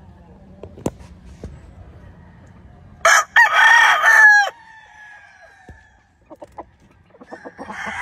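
A gamefowl rooster crows once, about three seconds in, a loud call lasting about a second and a half that trails off at the end. Short chicken calls and clucking start up near the end.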